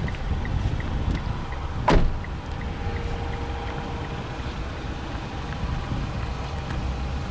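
A car door slams shut about two seconds in, a single sharp knock with a short ring, over the low steady idle of the Mitsubishi ASX's 1.8 MIVEC petrol engine. Faint, fast soft ticks, about three a second, run through the first few seconds.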